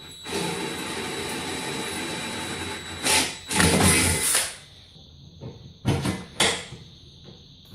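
A power drill runs steadily for about three seconds, then surges louder twice, followed by two sharp knocks a little later.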